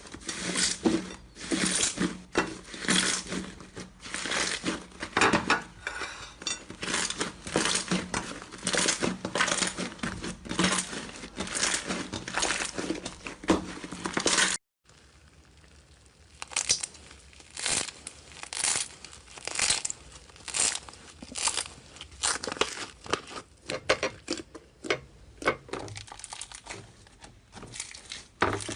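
Slime being squeezed and pressed by hand: a dense run of irregular wet crackles and pops, broken by a brief gap about halfway through before the crackling carries on.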